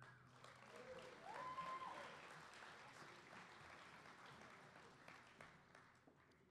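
Audience clapping for a graduate whose name has just been called, with one whoop about a second in; the applause fades away by the end.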